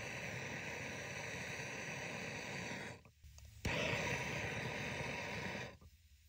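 MAP gas torch flame hissing steadily while heating a copper line-set joint for soft soldering. It goes out about three seconds in, relights with a sharp click, and hisses again for about two more seconds before shutting off.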